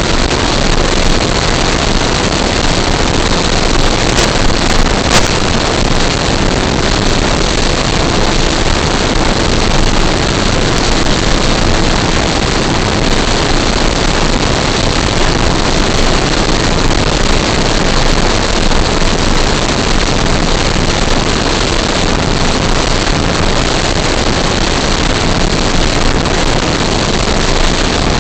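Electric RC scale model airplane in flight: a steady rush of wind and propeller noise with a faint high motor whine, as picked up on the plane's own camera.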